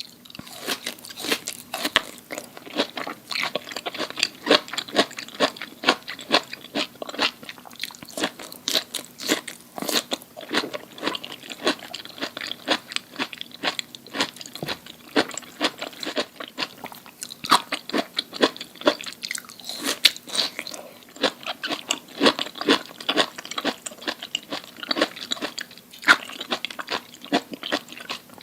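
Close-miked eating of crunchy food: crisp bites and chewing, a dense, irregular run of sharp crunches.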